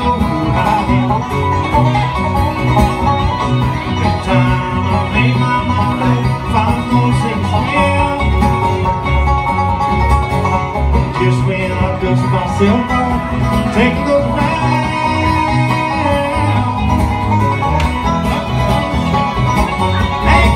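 Live acoustic bluegrass band playing an instrumental break: acoustic guitars strumming and picking with a fiddle, no singing.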